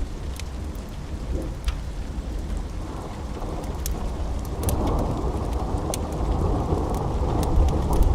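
Steady rain with a deep rumble of thunder that swells about halfway through and grows louder toward the end. Scattered sharp crackles of a wood fire sound over it.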